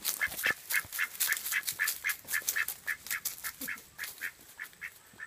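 Drake (male duck) making a fast run of short, raspy, hoarse calls, about five a second, the whispering sound a drake makes because drakes cannot quack.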